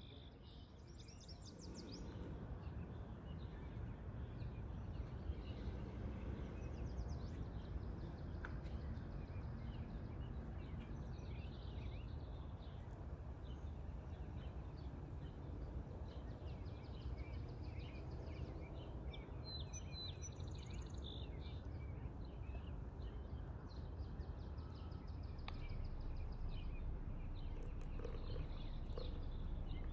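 Small birds chirping and calling, short repeated chirps on and off, over a steady low background rumble.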